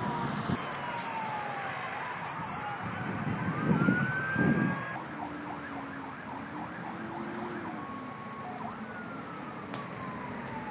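Emergency vehicle siren, which an onlooker takes for a police car: a slow wail sliding down and up, switching to a fast yelp about midway, then back to a slow falling wail near the end. Two brief loud low bursts of noise break in about four seconds in.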